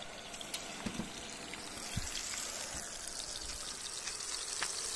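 Chorizo sausage sizzling in its fat in a frying pan, a steady hiss that grows louder about two seconds in, with a few soft knocks before that.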